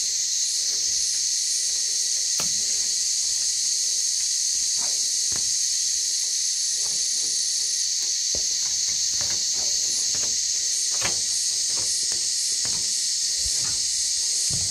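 Loud, steady high-pitched insect chorus with a faint pulsing above it, typical of cicadas in hot weather. Under it, scattered faint clicks and taps of a small metal tool working along the seam of a steel hydraulic tank plate.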